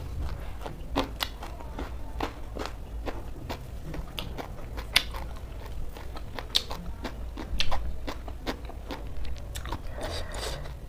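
Close-up crunchy chewing of a mouthful of shredded cabbage salad and rice: irregular crisp crunches and mouth clicks, the loudest a little past halfway.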